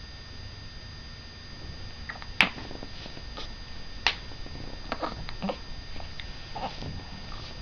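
Hiccups: a series of short, sharp hics at irregular intervals, roughly one a second. The loudest come about two and a half and four seconds in.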